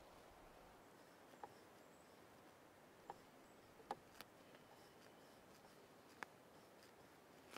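Near-silent forest background with about five faint, short ticks and taps from a brush dabbing oil paint onto a wooden painting panel, the sharpest about four seconds in.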